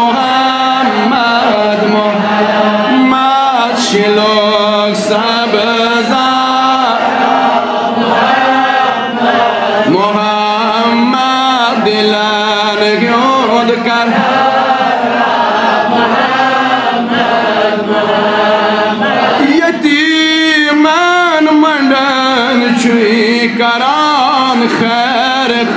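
Man singing a Kashmiri naat, a devotional song in praise of the Prophet Muhammad, in long melodic phrases that bend and glide in pitch.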